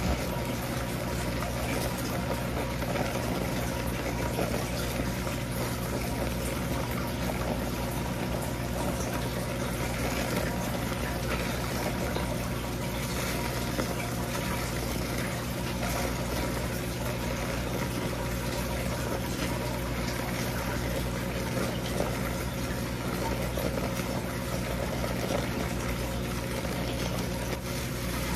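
Water running steadily into a sink, an even rushing noise over a low steady hum.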